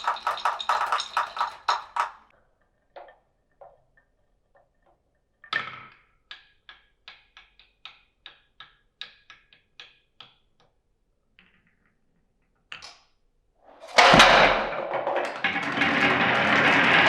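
Marbles running through a wooden and plastic marble run: a fast rattling clatter of balls on the track, then a series of ringing clacks a few per second as a ball drops from piece to piece. About fourteen seconds in, a loud crash starts a dense, continuous rattle of many marbles pouring and rolling together.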